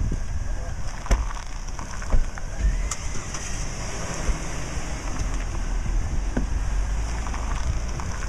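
Hummer H3 engine idling, a low steady rumble, with a few light knocks about one, two and three seconds in.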